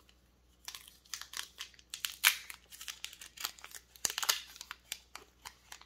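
Foil wrapper of a Pokémon card booster pack being crinkled and torn open by hand: a run of irregular crackles and rustles.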